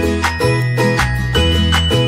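Background music with a steady beat, a bass line and bright chiming notes.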